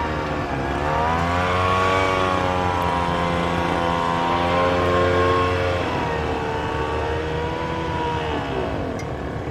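A car engine running, its pitch rising about a second in, holding, and falling away near the end, as when a car accelerates and slows.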